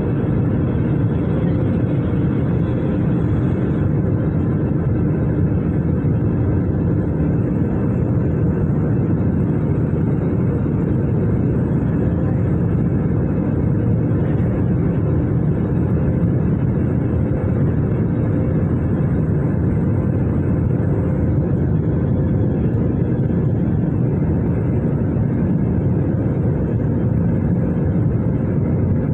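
Airbus A320 cabin noise in flight, heard from a window seat beside the engine: a steady, loud, low roar of the jet engine and airflow that holds even throughout, with a faint steady hum in it.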